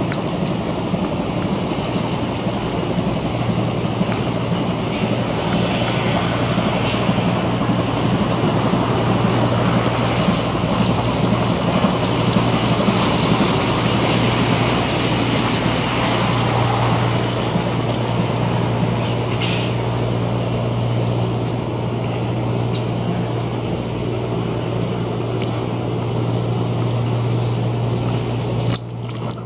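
Car ferry's diesel engines maneuvering as the ship backs in to berth: a steady low drone with a broad rushing wash that swells midway and then eases.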